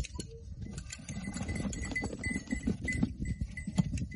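Goat shearing by hand: sharp metal clicks of shears snipping through long goat hair, over irregular scuffling of goats and handlers. A short high note repeats several times a second through the middle.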